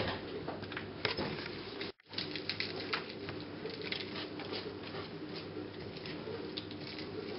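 Light pattering and small clicks of kittens scampering and playing on a fabric mat and a plastic ball-track toy, over a steady low hum. The sound cuts out for an instant about two seconds in.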